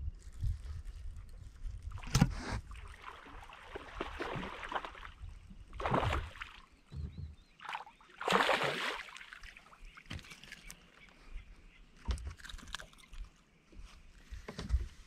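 Hooked bass splashing and thrashing at the water's surface beside a bass boat as it is reeled in, in several short bursts. A few sharp knocks near the end as it is swung aboard onto the deck.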